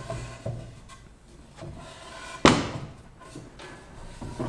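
Wooden boards of construction lumber knocking onto a workbench and against each other as they are stood on edge: a few light knocks, then a sharp, loud wooden clunk about two and a half seconds in and another at the very end.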